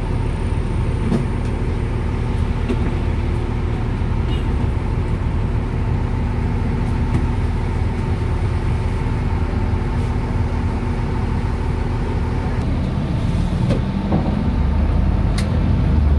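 A bus's front-mounted diesel engine running steadily, heard from inside the cabin beside it. Near the end the engine note shifts and rises a little, and there is one sharp click.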